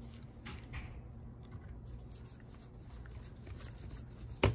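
Precision screwdriver turning a small battery-retaining screw into a laptop's plastic chassis: faint scattered ticks and light scraping, then one sharp click near the end.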